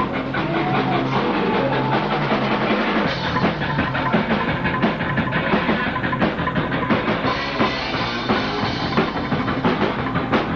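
Psychobilly band playing live on electric guitar, bass and drum kit. Held guitar and bass notes ring for about the first three seconds, then a fast, driving drum beat kicks in under the full band.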